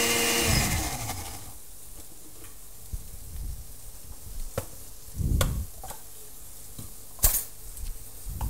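Small countertop blender blitzing salsa verde, whirring steadily and then switched off, winding down about a second in. After it, food frying quietly in a pan, with a few sharp clicks and knocks of utensils and containers.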